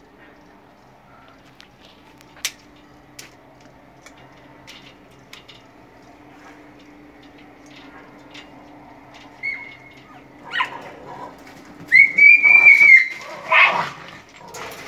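Light clicks of pliers working the copper sheath of a mineral-insulated (MICC) cable. Near the end comes a loud, high-pitched whine lasting about a second, followed by a second, shorter loud sound.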